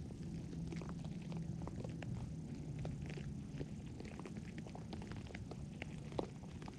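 A pet chewing crunchy food: many short, irregular crunching clicks, several a second, over a steady low purr.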